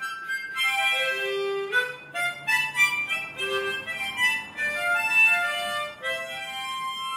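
Harmonica played solo: a melody of short and held notes, often with several notes sounding together.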